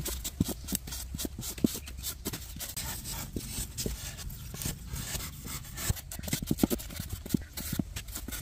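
Blade cutting and trimming sculpting foam: a quick, irregular run of short scrapes and clicks as the foam is shaved away.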